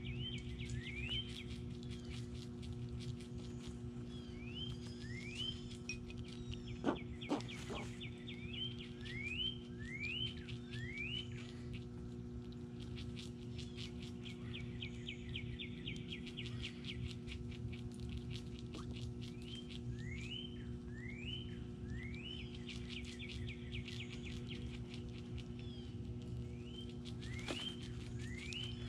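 Backyard songbirds calling, with groups of rising slurred whistles repeated every few seconds and rapid chattering trills between them. Two sharp clicks come about seven seconds in, over a steady low hum.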